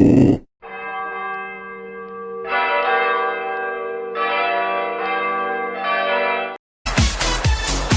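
Church bells ringing: four strikes about every second and three quarters, each one ringing on, cut off at once. A low rumble stops just as the bells begin, and dance music with a steady beat cuts in near the end.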